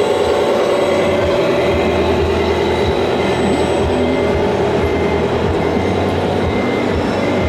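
Radio-controlled model semi-truck running steadily as it pulls its trailer, a continuous engine-like drone with a thin high whine over it.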